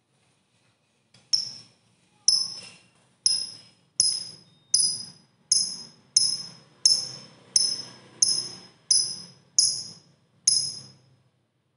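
A lovebird giving a run of about a dozen short, sharp, high chirps, evenly spaced at roughly one and a half a second. This is the clipped, ticking call that Indonesian keepers call 'ngetik'.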